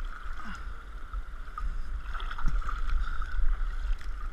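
Floodwater in a fast-flowing creek rushing and splashing around a camera held at the water surface, with a heavy low rumble of water buffeting the microphone.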